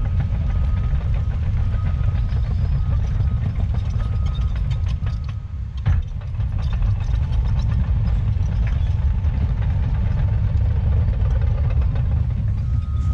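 Diesel engine of heavy earthmoving equipment running steadily under load, with a single sharp knock about six seconds in.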